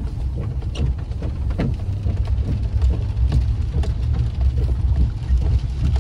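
Inside the cab of a Chevy 2500HD pickup driving in the rain: a steady low rumble from the engine and the tyres on the wet road, with scattered ticks of rain and the wiper blades on the windshield.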